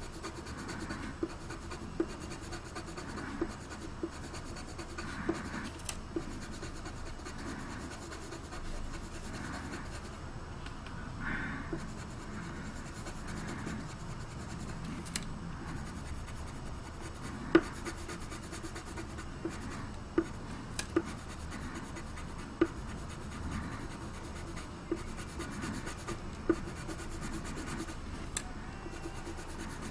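Colored pencil shading on drawing paper: a steady scratchy rubbing of the pencil lead across the paper, with short sharp ticks every second or two.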